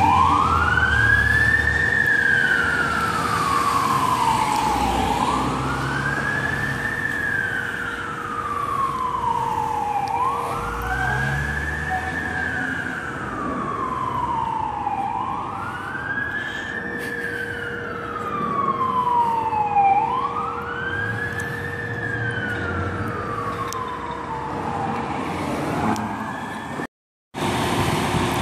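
Fire truck siren wailing in a slow cycle, rising in pitch over about two seconds and falling over about three, five times over, as the apparatus drives off; a low rumble of traffic underneath. It cuts off suddenly just before the end.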